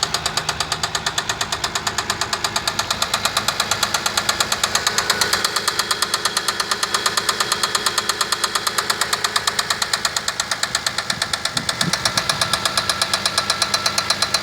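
Toyota 1MZ-FE 3.0 L V6 engine running with a loud, regular metallic knock, about six or seven strokes a second. It is an internal engine knock that set in within 100 km of an oil change.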